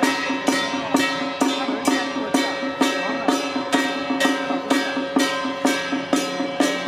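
Temple-procession music: a steady beat of drum and cymbal strokes, about two a second, over sustained pitched tones.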